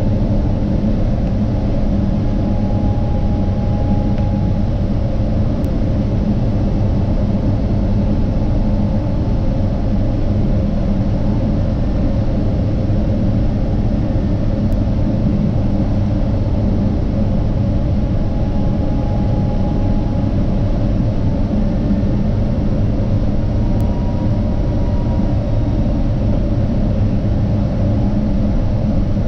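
Boeing 777-200ER's Rolls-Royce Trent 892 turbofan and the rushing airflow on final approach, heard inside the cabin at the window: a steady low rumble, with a faint hum that comes and goes a few times.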